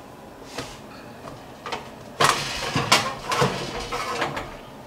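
Knocks, scrapes and clatter of a metal pan and rack being handled at a countertop oven as pork loins are taken out. The loudest knocks come about halfway through, followed by a short run of rattling.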